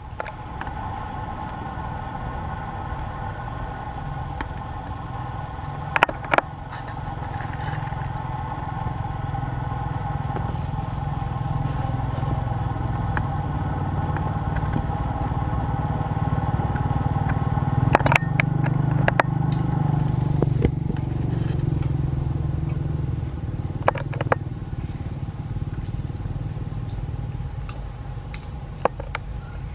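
A motor engine running steadily nearby, growing louder past the middle and easing off near the end, with a few sharp clicks over it.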